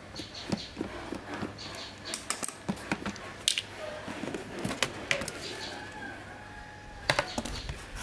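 Screwdriver backing screws out of a plastic fan base, with scattered small clicks and light plastic knocks as the screws are picked out and the base cover is lifted off.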